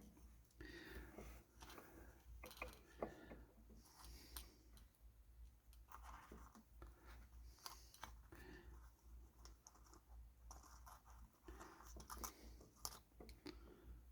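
Faint, irregular small clicks and scratching from handling tiny electronic parts: resistor leads being bent and fitted into a kit circuit board. A low steady hum runs underneath.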